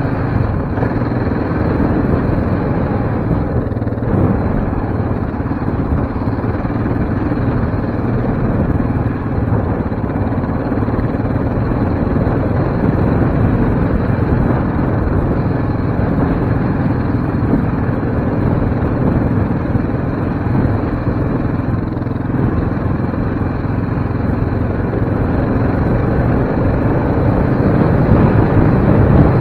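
Yamaha Raptor 700R sport quad's single-cylinder four-stroke engine running steadily while riding along a dirt trail, getting a little louder near the end.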